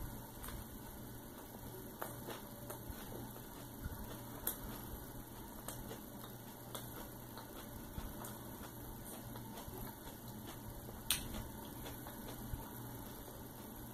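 Close-up chewing of a mouthful of cheeseburger: scattered soft mouth clicks, with two sharper clicks about four and eleven seconds in, over a steady low hum.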